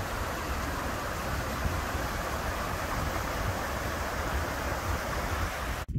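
River water rushing steadily over rocks in a narrow rocky gorge, an even hiss. It cuts off abruptly near the end.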